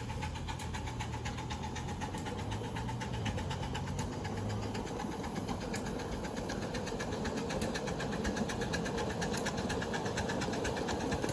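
Ride-on scale model train running past: a steady mechanical running sound with regular clicking of the wheels on the track, the clicks coming quicker and a little louder in the second half.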